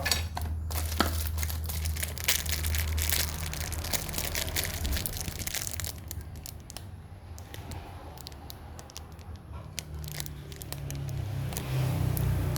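Packaging being torn open and crumpled: crackling and rustling with many sharp clicks for the first half, quieter after that, over a steady low hum.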